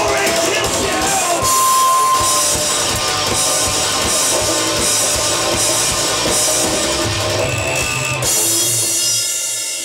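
Live rock band playing: electric guitar, bass guitar and an electronic drum kit, the cymbals keeping a steady beat. The music dies away near the end as the song finishes.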